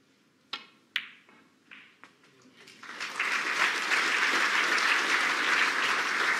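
Snooker cue tip striking the cue ball with a sharp click, the cue ball hitting the reds a moment later, and a few lighter clicks of balls and cushions. From about three seconds in the audience applauds steadily.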